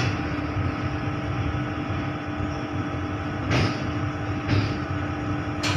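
Vande Bharat electric train set heard from inside the driver's cab: a steady low rumble with a constant electrical hum, and three short sharp clacks in the second half.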